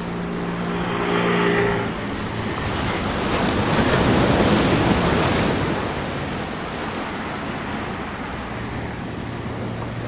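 Sea waves washing in over a rocky shore, swelling twice and loudest about four to five seconds in. A low engine hum is heard under the surf during the first two seconds and again near the end.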